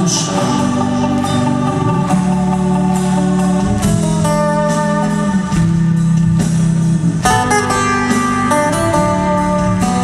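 Rock band music in an instrumental passage: a lead guitar plays a melody of held notes over steady bass, with no singing.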